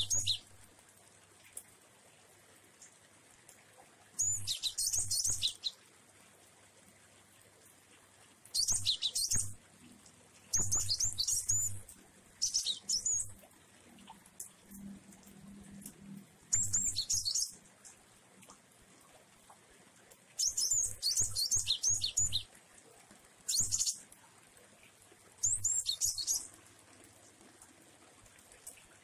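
A caged glatik wingko (pied triller) singing its 'jueh' calls with variations. There are about eight short bursts of high, quickly sliding chirps, each a few seconds apart.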